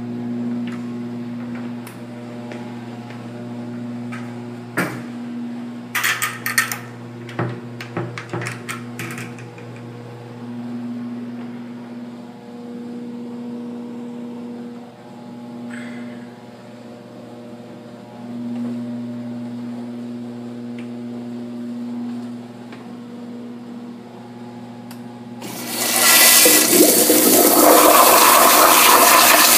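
Metal toilet-stall door and latch clicking and clattering over a steady low hum, then about four seconds before the end a Crane Plumbing Whirlton toilet flushes: a sudden, loud rush of water that keeps going.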